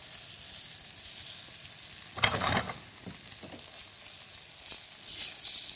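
Flour-coated tofu slices sizzling in hot olive oil in a frying pan as they are turned over, with a brief louder crackle about two seconds in.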